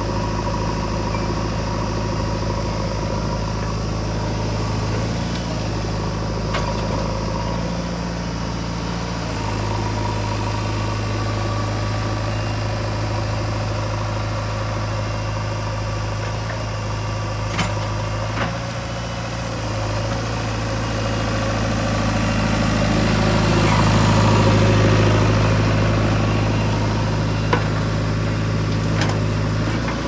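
Diesel engines of a Mahindra 475 DI tractor and a JCB 3DX backhoe loader running steadily at idle. The engine note swells for a few seconds about three-quarters through, and a few sharp knocks sound in the second half.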